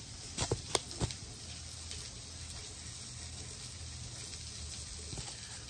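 Hands rubbing dry seasoning onto a raw steak in a foam meat tray, with a few light taps and clicks in the first second over a steady low hum.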